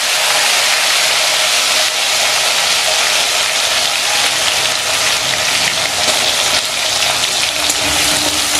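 Potato wedges sizzling steadily in hot mustard oil in a wok, with a metal spatula stirring them near the end.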